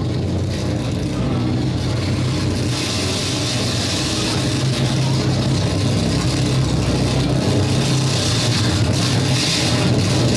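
Noise music: a dense, steady wash of noise over a low droning hum, growing a little louder and brighter about three seconds in.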